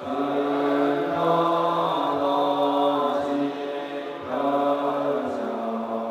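Buddhist monastic assembly chanting in unison, a slow, drawn-out liturgical chant of many low voices. Each held note steps to the next about once a second.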